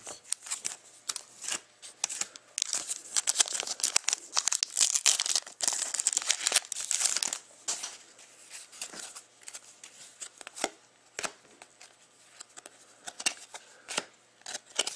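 Foil wrapper of a freshly cut Panini trading-card pack crinkling as the cards are pulled out of it, dense for the first seven seconds or so. It then gives way to sparser light clicks and rustles as the cards are slid and flicked against each other one by one.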